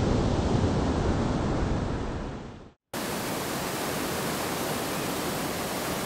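Surf washing up a sandy beach, fading out after about two and a half seconds. After a brief gap, the steady rush of a whitewater river pouring over rocks.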